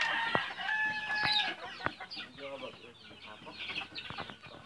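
A flock of gamefowl chickens clucking and calling, with a loud drawn-out call held for the first second and a half, then many short clucks and two sharp clicks.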